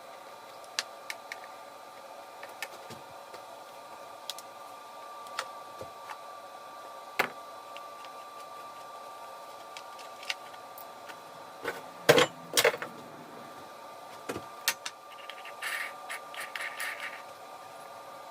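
Hand tools and chainsaw parts being handled on a workbench: scattered clicks and light knocks, a cluster of louder knocks about twelve seconds in, and a short scraping rattle near the end, over a faint steady hum.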